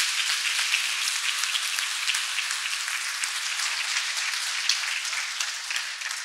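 Audience applauding steadily, beginning to die away at the very end.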